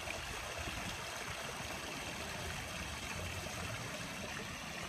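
Steady, even water noise of a swimming pool at the child's legs, with a low flickering rumble and no distinct splashes.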